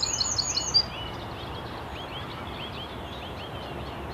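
Birds singing over a steady outdoor hiss: a quick series of high notes that stops about a second in, then fainter short chirps repeating a few times a second.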